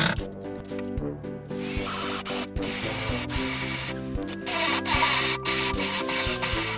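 Background music with held notes and a steady beat. Twice, for about a second each, a rasping hiss like sanding or a power tool at work rises over it.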